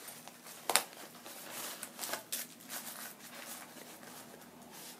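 Soft rustling and light handling noises of wrapped pads being pushed into a small bag, with one sharp click a little under a second in.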